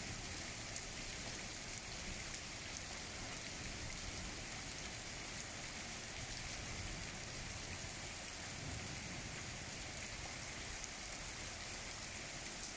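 Steady rain falling on muddy ground and standing water, with scattered drops ticking close by.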